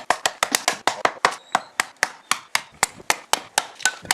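Rapid sharp clicks, about five a second, made by a person imitating the sound of chopping wood.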